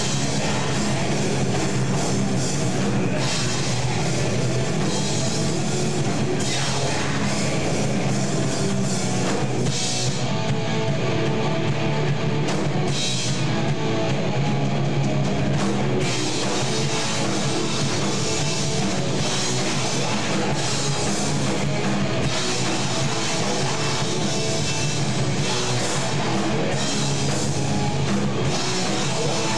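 A rock band playing live: electric guitars and a drum kit, loud and steady.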